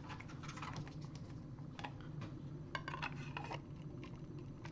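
Light plastic clicks and rattles of a blank CD being handled and fitted into a small homemade CD holder, bunched together about three seconds in, over a faint low hum.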